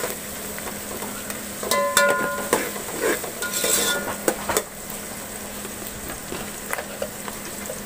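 Sliced onions and whole spices sizzling as they shallow-fry in oil in a large metal pot, with a metal ladle scraping and clinking against the pot as they are stirred. After about four and a half seconds the stirring stops, leaving the steady sizzle.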